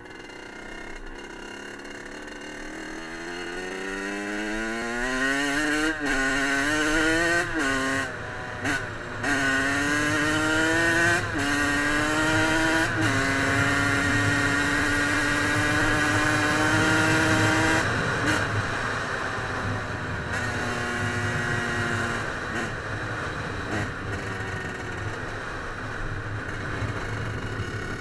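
Kawasaki KX85 two-stroke dirt bike engine accelerating through the gears, its note climbing and dropping sharply at each upshift over the first dozen seconds. It then holds a steady cruise and eases off about two-thirds of the way through.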